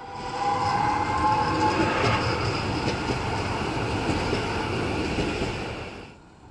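Tatra KT4D trams passing close by, a steady rumble and clatter of wheels on the rails, with a high whine through the first two seconds. The sound cuts off abruptly about six seconds in.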